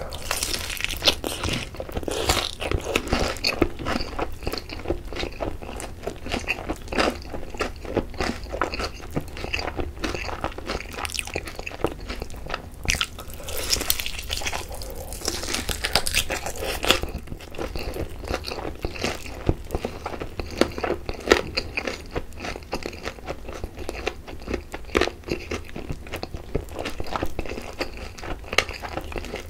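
Close-miked biting, crunching and chewing of Korean sweet-spicy sauced fried chicken drumsticks, the crisp glazed coating crackling with each bite. The crunching comes in dense runs, heaviest about two seconds in and again around the middle.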